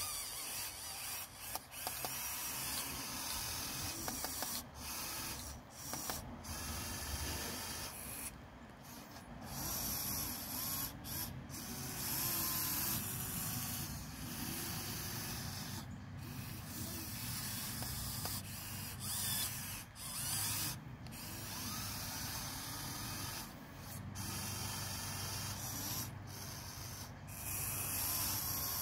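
Electric motors and gearboxes of a Huina 1580 RC excavator whirring as the boom, arm and bucket move, starting and stopping often.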